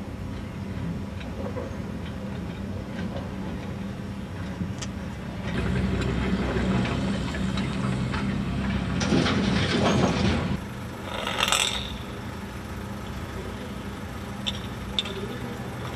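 A vehicle engine running steadily at idle. About five seconds in, a louder rushing noise builds for about five seconds and cuts off suddenly, followed by a brief hiss.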